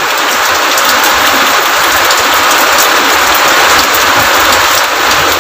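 Rain falling steadily: a continuous, even hiss.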